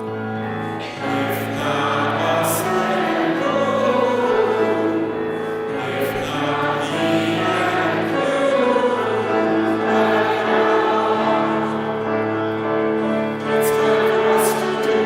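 Music: a singing voice carrying a melody over held piano or keyboard chords.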